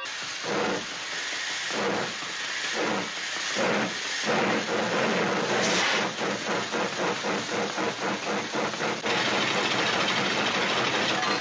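Sound effect imitating a steam locomotive: hissing chuffs start slowly, about one a second, then speed up into a fast, even chugging rhythm and blend into a steady hiss about nine seconds in.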